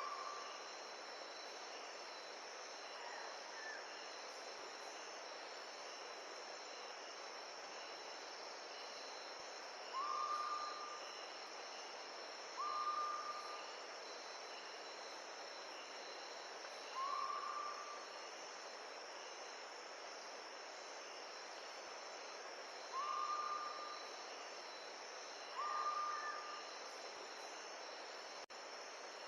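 Steady high-pitched insect buzzing over an even hiss of wind, with a bird's short whistled note repeated six times at uneven intervals, each about half a second long and level in pitch.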